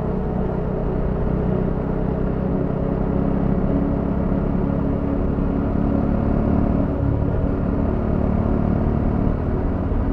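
Motorcycle engine running steadily while riding along, a low, even drone.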